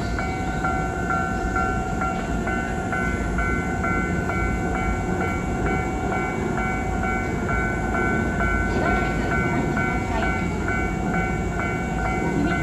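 Japanese railway level-crossing warning bell, the standard low-tone electronic type, ringing in an even, rapid repeating pattern. Under it is the steady rumble of a train running past.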